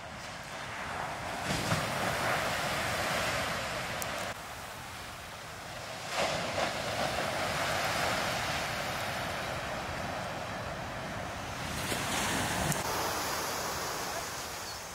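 Heavy shorebreak waves crashing and surf rushing up the beach, swelling and fading in three surges, with wind on the microphone.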